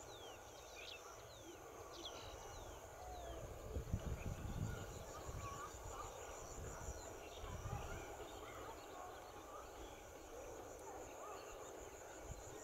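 Open-field ambience: scattered bird chirps and short falling calls over a steady, high, pulsing buzz. Low rumbles come and go about four and eight seconds in.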